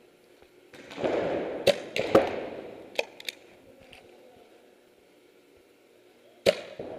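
Paintball markers firing scattered single shots: sharp separate pops, the loudest about two seconds in and again near the end, with a short rushing noise under the first few.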